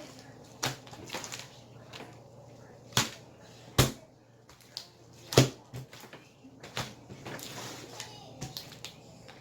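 Slime being worked by hand, with several sharp smacks at irregular intervals; the loudest come about four and five and a half seconds in.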